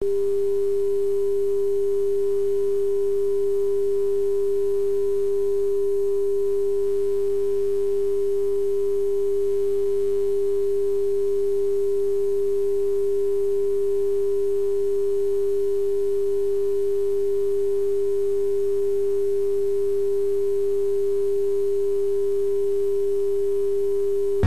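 Line-up test tone that goes with colour bars at the head of a VHS tape: a single steady pure tone at an even level.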